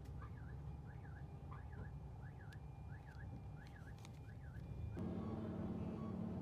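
An electronic warning sounder repeats a short chirp that falls then rises in pitch, about every two-thirds of a second, over a low traffic rumble. About five seconds in it cuts off, and louder street traffic noise with a steady engine hum takes over.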